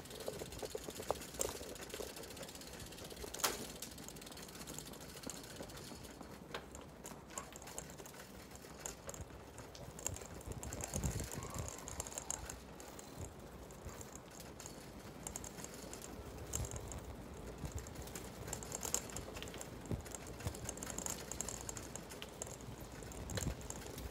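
Light, rapid ticking of a bicycle's freewheel hub as the bike coasts, over quiet street ambience.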